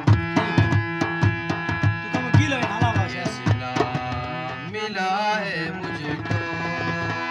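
Ghazal music: tabla playing a quick, even rhythm over held chords, with a wavering melody line above them. The tabla strokes thin out about two-thirds of the way through while the held chords carry on.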